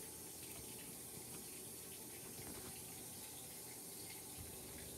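Steady background hiss of water running in, from a washing machine filling.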